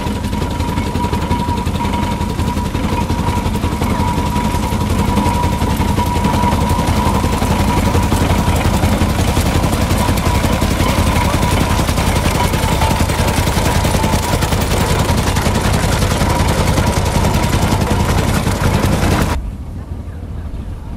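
Ivel tractor's twin-cylinder petrol engine running under load with a rapid, popping exhaust beat as it pulls a binder through standing oats. The sound drops off suddenly near the end.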